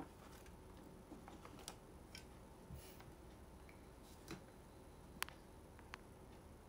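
Near silence with a few faint, irregular clicks and taps of small objects being handled on a desk, the sharpest a little over five seconds in.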